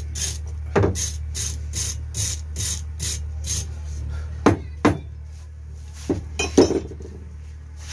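Hand wire brush scrubbing the cast drive-end housing of a tractor starter motor, in quick strokes about two to three a second that stop about halfway through. Four sharp knocks follow as metal parts are handled, over a steady low hum.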